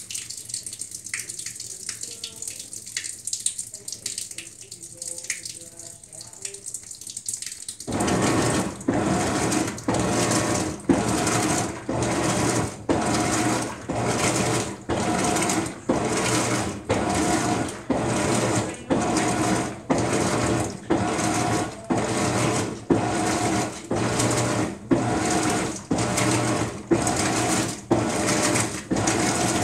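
Maytag MVWX655DW top-load washer starting its wash agitation about eight seconds in: the motor drives the agitator back and forth in even strokes, a little over one a second, churning the load in water. Before that, only faint drips and clicks from the filled tub.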